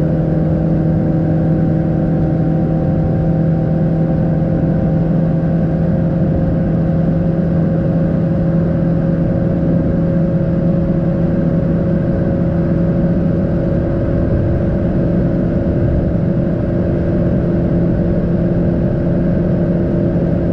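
Proton Savvy's 1.2-litre four-cylinder engine running at about 5,000 rpm in fifth gear at high speed, heard from inside the cabin. It is a steady drone, its pitch creeping slowly upward, over road and wind noise.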